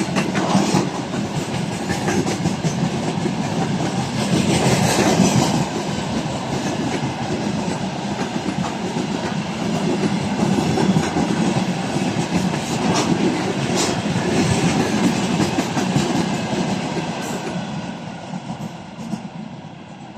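Loaded tank cars of a freight train rolling past, their wheels rumbling and clattering over the track. The sound fades away over the last few seconds as the end of the train goes by.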